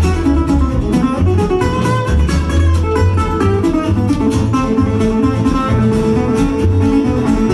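Instrumental break in a live country song: a resonator guitar picks a quick run of single notes over a steady low bass line.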